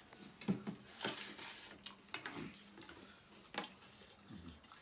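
Spoons and forks clinking and scraping against ceramic plates as several people eat, with a handful of sharp, fairly faint clinks at irregular intervals.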